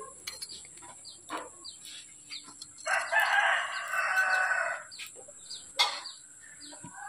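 A rooster crowing once, starting about three seconds in and lasting about two seconds, with short high bird chirps scattered around it and a sharp click near the end.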